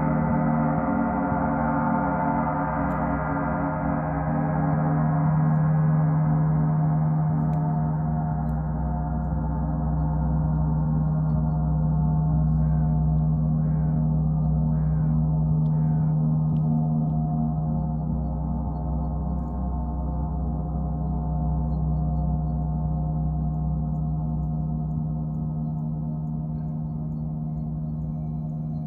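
A large gong ringing in a sustained wash of many overtones around a strong low hum, slowly dying away.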